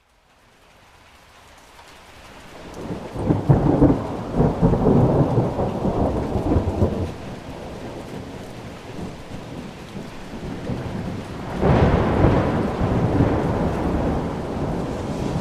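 Thunder rolling over steady rain. A long rumble builds a couple of seconds in, and a second sudden clap and rumble comes near the end.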